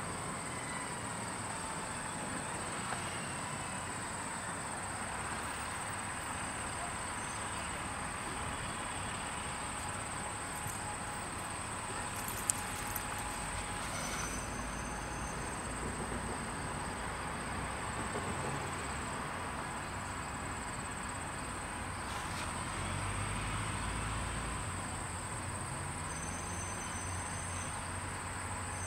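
Steady high-pitched insect chorus, with the low rumble of an approaching EMD F40PH-2 diesel-electric locomotive underneath, growing louder about three quarters of the way through.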